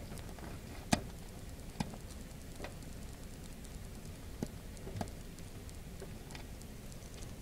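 Faint, irregular small clicks, about one a second, from a teddy bear hamster nibbling broccoli.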